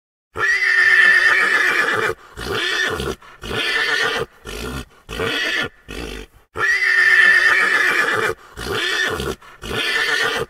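A pony whinnying twice: each whinny is a long high call that breaks into a run of shorter pulses. The second starts about six and a half seconds in.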